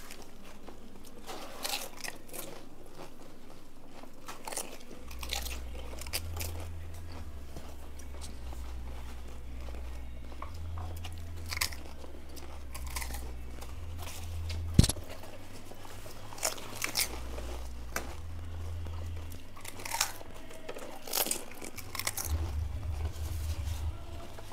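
Crisp pani puri (golgappa) shells crunching as they are bitten, with chewing between bites; short sharp cracks come every second or two, one much louder crack about fifteen seconds in.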